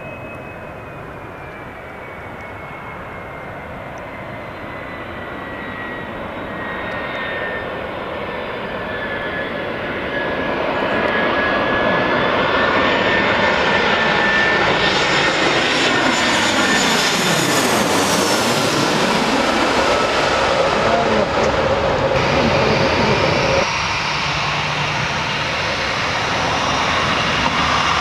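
Twin-engine jet airliner passing low overhead on final approach. Its engine whine falls slowly in pitch as it nears, and the roar grows steadily louder until it is loudest as the plane passes overhead, about two-thirds of the way through. Near the end the sound changes abruptly.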